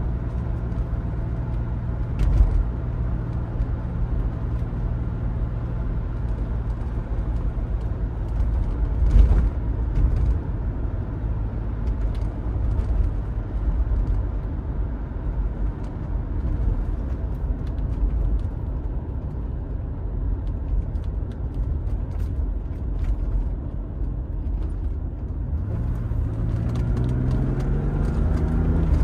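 The 3.4-litre straight-six of a 1980 BMW E23 735i with a manual gearbox, heard from inside the cabin while driving at steady revs, with a couple of thumps early on. Near the end the engine note climbs as the car accelerates.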